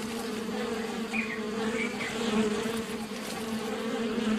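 Bees buzzing around the flowers of a sausage tree: a steady drone.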